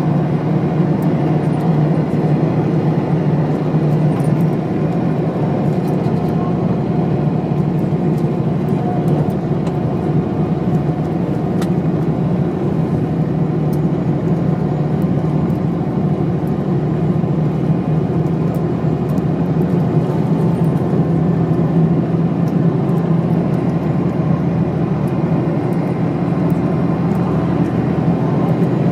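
Volvo diesel engine of a 1997 Steyr SL 12 bus running steadily, heard from inside the passenger cabin as a constant low hum mixed with road noise. Faint clicks and rattles come now and then.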